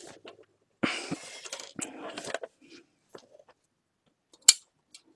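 Plastic housing of an Epson PictureMate printer being handled and pulled apart: a rustling scrape about a second in, light scattered clicks, and one sharp click near the end as the mechanism comes out of the shell.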